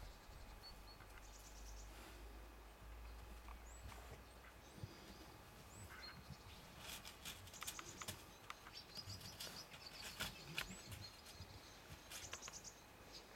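Faint outdoor quiet with a few brief high bird chirps and scattered soft clicks and rustles, busier in the second half.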